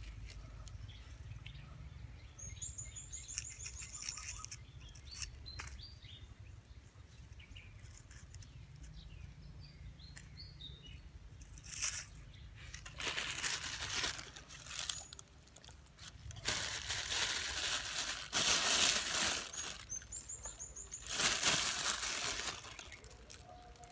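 Plastic bag of grain bait rustling in several loud bursts as it is handled and grain is shaken out onto dry ground, mostly in the second half. Small birds give short, thin, high chirps a few times.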